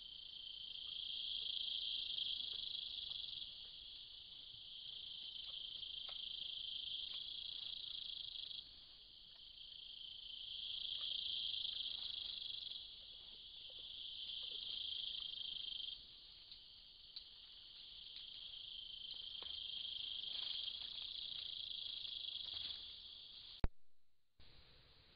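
A dense, high-pitched chorus of night-calling insects, a steady trill that swells and fades in slow waves. A sharp click near the end cuts it off and leaves it much quieter.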